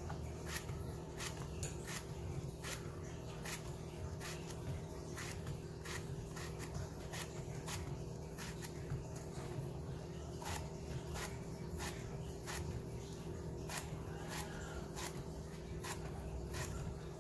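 A small knife cutting through a peeled loofah held in the hand, slicing it into rounds: a short crisp click at each cut, about one to two a second, over a steady low hum.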